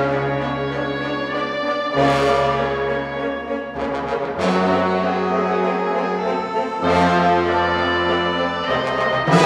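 Wind orchestra playing held, brass-heavy chords over sustained low notes, a new chord coming in about every two and a half seconds, each with a bright attack.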